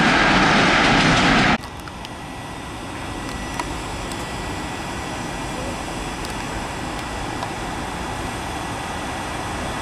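Container freight train rolling past loudly on the rails, cut off abruptly about one and a half seconds in. Then the quieter, steady sound of a Bombardier TRAXX E.484 electric locomotive approaching with its container train, with faint steady high tones.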